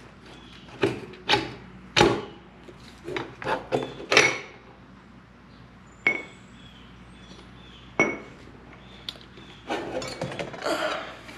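Scattered metal clinks and knocks as the front axle of a BMW S1000RR is worked out of the wheel with a front-axle tool, and metal tools are handled. Two of the clinks, about six and eight seconds in, are sharp and ring briefly, and the knocks come thicker near the end.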